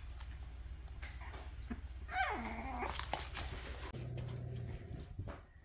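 Dogs playing with a puppy: a short whine falling in pitch about two seconds in, scuffling, and a low steady growl near the end.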